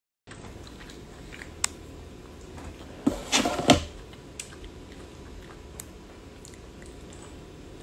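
A person chewing a mouthful of spaghetti and meatballs, with light clicks of a metal fork against a plastic meal tray and one louder sound between about three and four seconds in.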